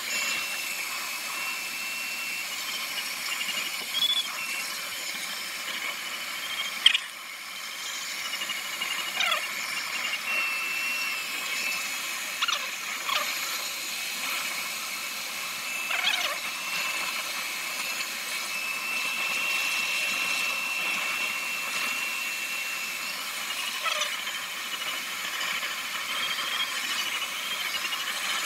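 Airflow hissing around a glider's cockpit and canopy in flight, with a thin, steady high tone that wavers slightly in pitch. A sharp click about seven seconds in is the loudest sound, and a few short falling chirps come and go.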